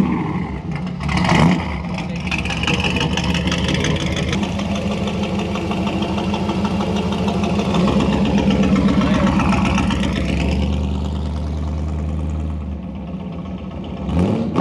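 A vehicle engine running steadily, its pitch sinking and rising again slowly, with a change in engine speed about ten seconds in.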